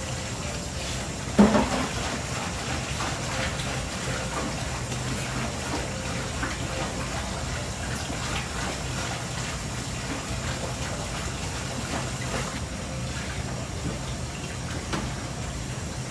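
Kitchen sounds: a steady watery rush over a low hum, with one loud clatter about a second and a half in and a few small clinks later.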